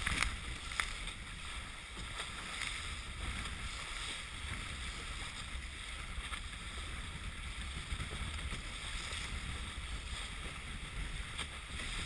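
Wind buffeting the microphone with a low rumble, over a steady hiss of water running along a sailboat's hull, with a few light clicks.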